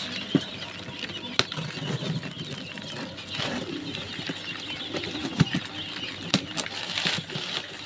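Scissors snipping the packing tape on a cardboard box, with the cardboard rustling and a few sharp clicks.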